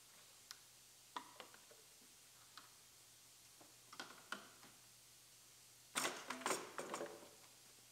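Scattered light clicks and rattles of plastic wiring-harness connectors and clips being handled on a pickup's dash frame, with a denser run of rattling about six seconds in.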